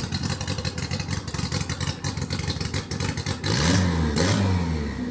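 Race car engine idling with a fast, choppy beat, then revved up and down twice, louder, from about three and a half seconds in.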